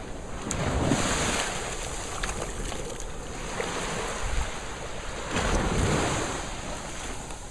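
Surf washing up the beach in two swells, about a second in and again around six seconds, with wind buffeting the microphone.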